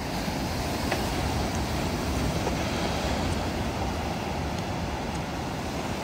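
Pacific Ocean surf breaking and washing over a rocky shore: a steady rush of water, a little louder in the first half.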